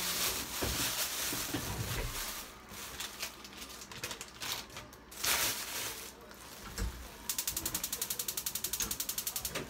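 Plastic bag crinkling and rustling, then a gas stove's igniter clicking rapidly, about ten clicks a second for some two seconds near the end, as the burner is lit.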